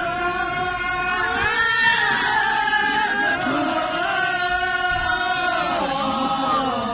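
Several voices singing together in a slow song, with long held notes that bend at their ends.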